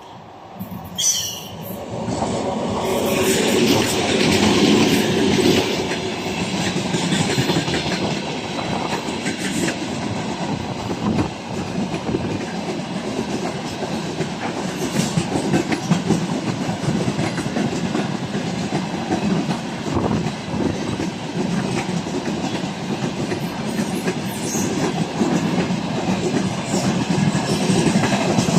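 A 2TE116 twin-section diesel locomotive passes close by, loudest a few seconds in, then its train of tank cars rolls past with a steady clickety-clack of wheels over the rail joints. There is a short high falling sound about a second in.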